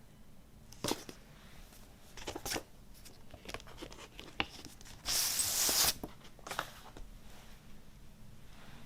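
Paper and cardboard from a vinyl record package being handled: a few short rustles and light taps, and one longer, louder sliding rustle about five seconds in, lasting just under a second.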